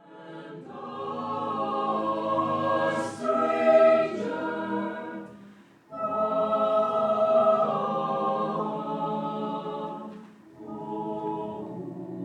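Choir singing held chords in three phrases, with short breaks about six and ten and a half seconds in; the last phrase is softer.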